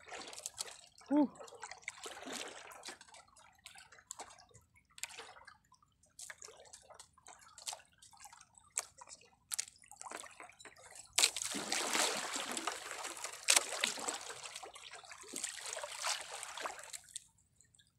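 Seawater splashing and trickling, with scattered small clicks and rustles, as a wet fishing handline is hauled in by hand. The splashing grows denser and louder for several seconds past the middle, then dies away just before the end.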